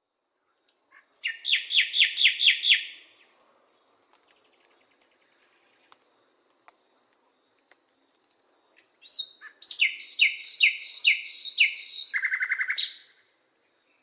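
A songbird singing two phrases. The first, about a second in, is a quick run of about seven repeated falling notes. The second, from about nine seconds in, is a longer series of repeated notes that drops into a lower, faster trill, with a faint steady high tone running behind.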